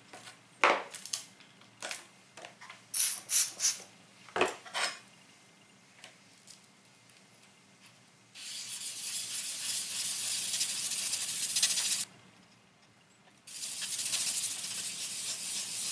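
Block plane iron being honed freehand on a 3000-grit diamond plate wetted with glass cleaner. First come several light clicks and clacks of handling. Then come two long spells of steady rasping of steel on the plate, the first about four seconds long and the second about two and a half seconds long, with a short pause between them.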